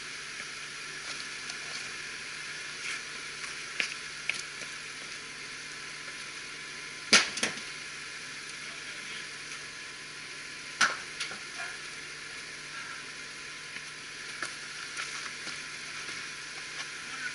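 Steady hissing noise with a few sharp clicks, the loudest about seven seconds in and another about eleven seconds in.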